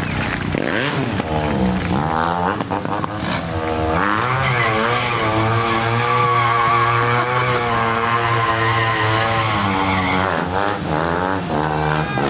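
Stunt motorcycle engine revving up and down in quick blips, then held at a steady high rev for several seconds from about four seconds in, and blipping again near the end.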